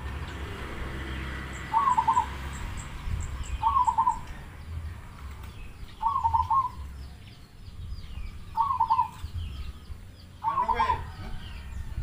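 Zebra dove (perkutut) of the black cemani type cooing: a short phrase of rapid stuttering coo notes, repeated about every two seconds, five times. Near the end a second, different animal call with a fuller, stacked sound breaks in over the last coo.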